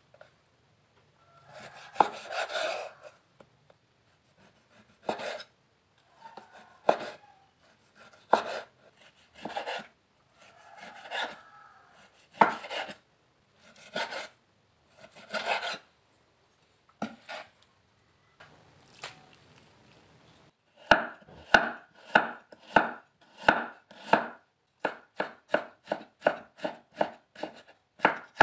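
Knife slicing raw beef on a bamboo cutting board, one stroke every second or two, each a knock on the board followed by a drawn scrape. About twenty seconds in, a cleaver starts chopping fresh ginger into shreds, quicker crisp chops at about two to three a second.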